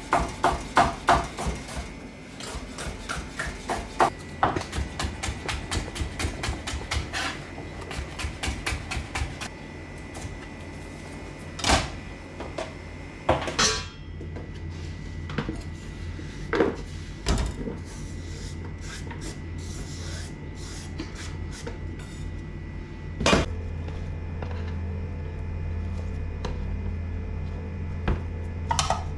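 A quick run of knocks and taps, several a second, for about the first ten seconds, then a few single louder knocks and clatters, over a steady low hum.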